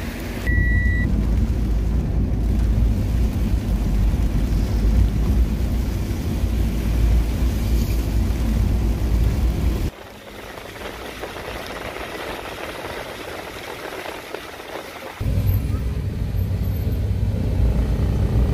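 Low rumble of a car driving on wet roads, heard from inside the car, with a short beep about half a second in. About ten seconds in it cuts abruptly to a thinner hiss without the rumble, and the low rumble returns about five seconds later.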